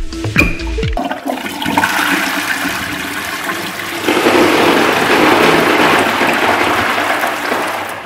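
A last second of electronic music, then a toilet flushing: water rushing into the bowl and draining away, getting louder about four seconds in and easing off near the end.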